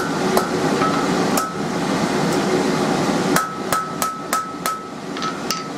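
Ball-pein hammer striking hot mild steel on an anvil, each blow giving a short metallic ring, as the curled handle end of a small knife is shaped. A few spaced blows come first, then from about three and a half seconds in a quicker run of about three blows a second. A steady whir runs underneath.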